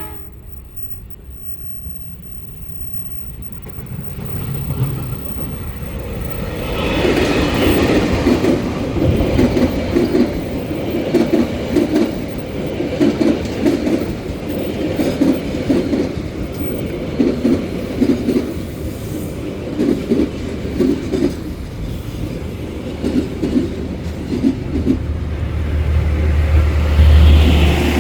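A train passing: a rumble builds over several seconds, then wheels clack in regular pairs about once a second as the wagons roll by, and a deep low rumble swells near the end.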